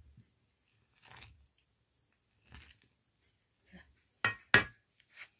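A steel ladle scooping and pouring hot milk in an iron wok over a wood fire, with a few soft pours, then two sharp, loud clinks of the ladle against the pan a little past four seconds in and a lighter one near the end.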